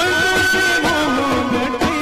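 Live Indian folk music for a Goan lamp dance: a melody held on a long high note over wavering lower lines, with regular drum strokes.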